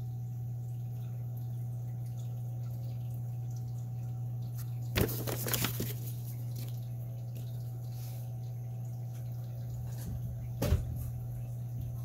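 Paper manual pages rustling as they are handled and turned, in a short burst about five seconds in, and a single light knock near the end, over a steady low hum.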